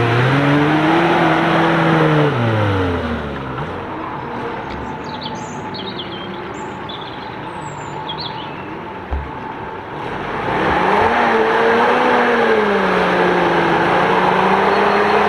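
A small off-road 4x4's engine revving up and easing off as it works through deep mud. After a quieter few seconds with birds chirping and a single thump, an old flat-fender jeep's engine revs up and runs under load, its pitch rising and falling as it climbs the muddy track.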